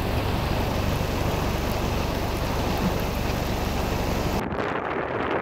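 Heavy rain falling steadily as a dense, even hiss. Near the end it cuts off abruptly, giving way to duller, gusty wind noise on the microphone.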